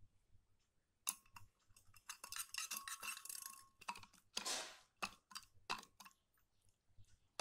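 A metal spoon clinking and scraping against a stainless steel bowl in a quick run of clicks, with a faint ring from the bowl. A hand then squishes wet detergent and salt water as it mixes the slime, with a short wet swish and a few more clicks.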